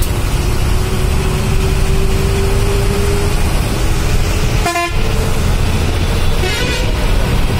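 Vehicle engine and road noise rumbling steadily inside the cab while driving through city traffic, with one short horn blast about five seconds in and a fainter, higher horn shortly after.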